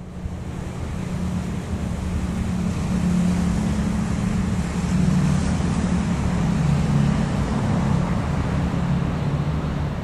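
Diesel locomotive's engine running as a train approaches from a distance: a steady low hum under a rushing noise.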